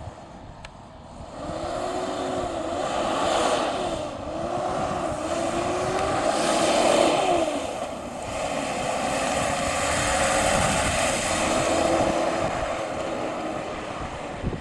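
1980 Toyota FJ43 Land Cruiser's F-series inline-six engine pulling the truck past at low speed. The engine note rises and falls several times as it accelerates and eases off. It is loudest as the truck passes closest, about halfway through, then runs steadier and fades as it drives away.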